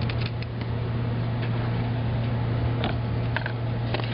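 Light metallic clicks and taps of screws and cage nuts being handled and fitted on a steel server rail, over a steady low hum.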